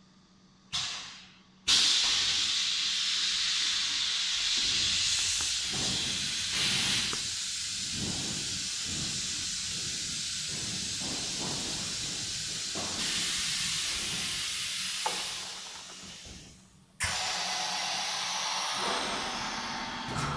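Vacuum forming machine's air system hissing loudly as the hot plastic sheet is formed over the mould. The hiss starts suddenly after two short clunks, holds steady, dies away, then starts again abruptly near the end.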